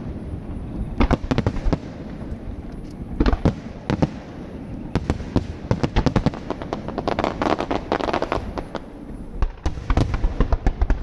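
Aerial fireworks shells bursting in quick clusters of sharp bangs, with a dense crackling stretch a little past halfway.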